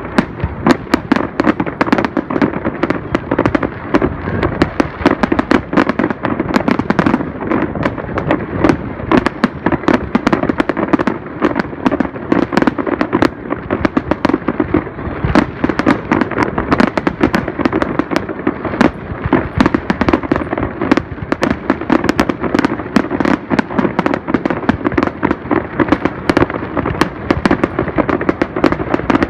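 Fireworks display: a dense, rapid barrage of aerial shell bursts, many sharp bangs a second with no let-up.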